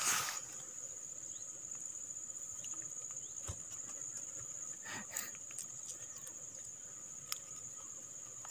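Insects chirring in a steady high-pitched drone, with scattered light ticks and a brief rustle at the start.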